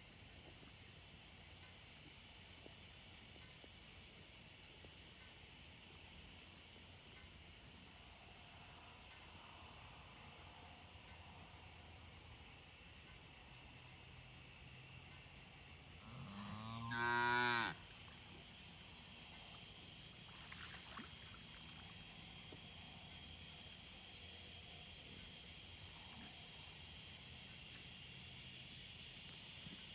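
A cow moos once, a single call of about a second and a half past the middle, over a faint, steady high buzz of insects.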